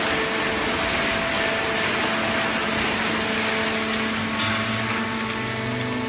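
Hydraulic horizontal waste-paper baler and its feed conveyor running: steady machinery noise with several constant hums, and a deeper hum joining about four and a half seconds in.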